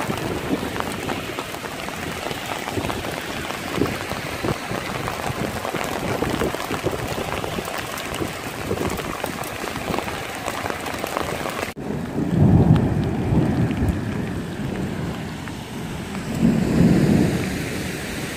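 Rain and hail pattering densely on pavement, a steady hiss full of small ticks. About twelve seconds in, the sound cuts abruptly to a softer patter broken by two low rumbles, each lasting a second or two.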